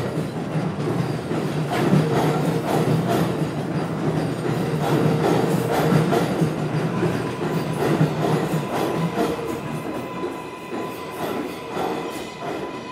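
New York City subway train pulling out on the next track, its wheels clacking over rail joints several times a second over a steady hum of the running gear. A thin steady tone comes in about two-thirds of the way through, and the sound fades as the train moves off.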